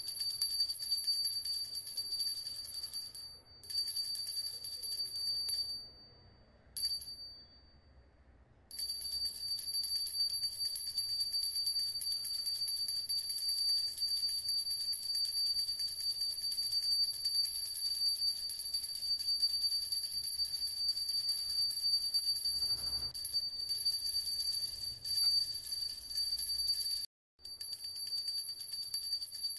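Typing sound effect: a fast run of light ticks over a steady, high bell-like ringing tone, breaking off briefly a few times as each line of text finishes.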